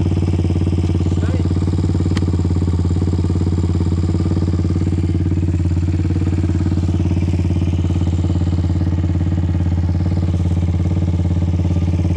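A small off-road vehicle engine idling steadily and loudly, with one faint click about two seconds in.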